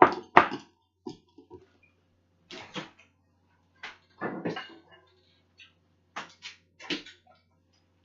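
Kitchen handling noises: a string of short knocks, clatters and rustles, the two sharpest right at the start, then more in bunches every couple of seconds.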